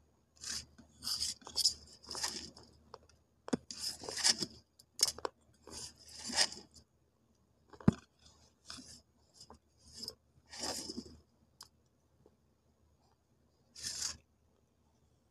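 Close-up mouth sounds of eating wet multani mitti clay paste off the fingers: irregular crunching and wet smacking in a dozen or so short bursts, with a sharp click about eight seconds in.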